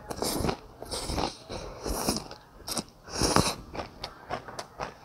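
Close-up slurping of rice noodles, several airy slurps in the first three and a half seconds, followed by chewing.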